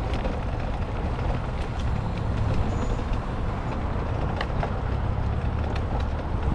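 Steady rumble and wind noise of a bicycle riding a gravel towpath, with scattered small ticks and clicks.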